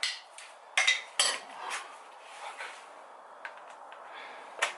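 Metal hand tools and parts clinking and clanking as they are handled. There are about half a dozen sharp knocks, the loudest about a second in and one just before the end.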